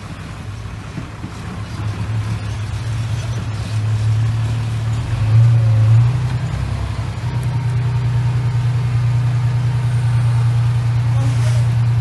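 Dump truck engine running steadily with a low hum, growing louder over the first half and swelling briefly about five seconds in.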